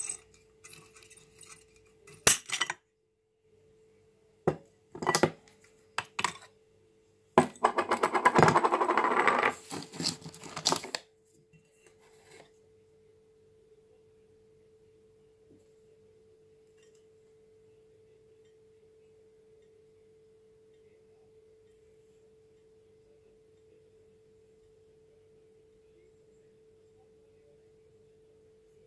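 Glass wine bottle handled against a wooden jig after its bottom has been cut off by a heated wire: a few sharp knocks and clinks, then a loud scraping rattle lasting a few seconds. After that only a faint steady hum remains.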